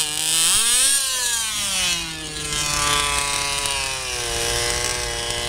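Small model engines of a multi-engine RC micropulling tractor running on the stand. They rev up to a peak about a second in, fall back, then run at a steady, slowly easing speed.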